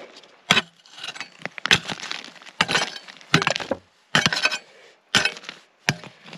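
A pick chipping at bedrock: about seven sharp strikes of metal on rock at irregular intervals, each with a short ringing clink, knocking the rock flatter over a detected target.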